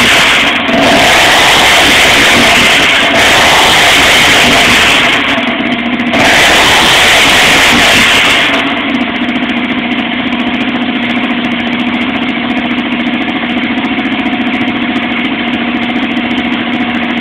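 1985 Honda XR200R's air-cooled four-stroke single-cylinder RFVC engine running on its first start-up while being tuned. It runs at high revs, dipping briefly a few times, then drops to a steady idle about eight and a half seconds in.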